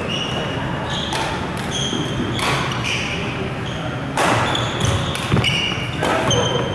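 Badminton play in a large, echoing sports hall: several sharp racket strikes on the shuttlecock, mostly in the second half, with short high squeaks of shoes on the court floor.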